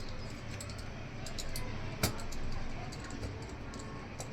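Small light clicks and ticks of a precision screwdriver working tiny screws out of a smartphone's internal frame, with one sharper click about two seconds in, over a low steady hum.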